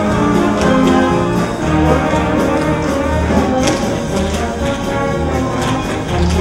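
Pit orchestra playing an instrumental dance passage with brass to the fore over a steady beat.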